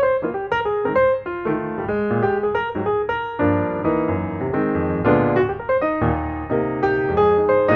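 Background piano music: a melody of quickly played notes over chords.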